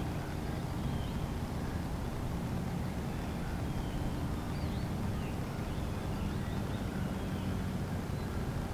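Steady low drone of a motorboat engine across the water, with a few faint bird chirps.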